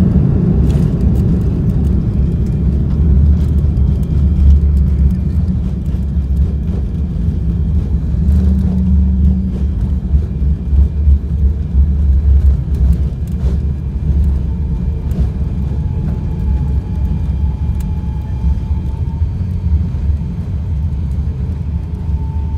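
Cabin noise of an Airbus A340-600 on arrival, heard from a passenger window seat: a loud, steady low rumble that is strongest at first and eases a little, with a faint steady whine coming in about two-thirds of the way through.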